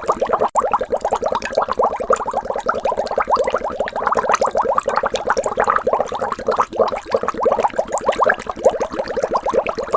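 Water bubbling in a steady stream: many small bubbles in quick succession, each a short blip rising in pitch.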